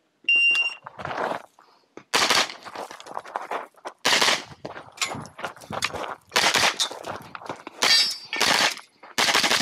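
Shot timer's start beep, then a pistol-caliber carbine firing a long string of shots, many in quick pairs with short pauses between groups.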